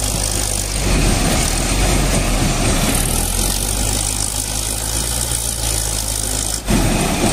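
Diesel engine of a large wheel loader running as it works its bucket into a pile of rocks and dirt: a steady low hum, growing rougher and louder between about one and three seconds in. The sound breaks off briefly near the end and then resumes.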